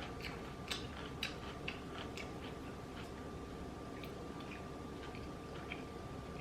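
Close-miked eating sounds: wet mouth clicks and lip smacks while chewing, several in quick succession in the first two seconds, then sparser. A faint steady high hum runs underneath.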